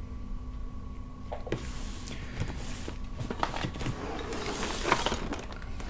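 Cardboard LEGO set box being handled and turned over: scraping and knocking, louder in the second half with a few sharp knocks, over a steady electrical hum.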